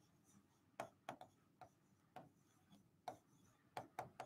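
Faint, irregular taps and clicks of a stylus writing on an interactive display screen, about nine light taps as the letters are written.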